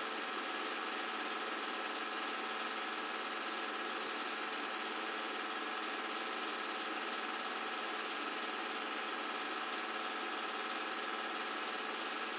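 Film projector running with a steady mechanical whir and a few constant tones from its motor and mechanism.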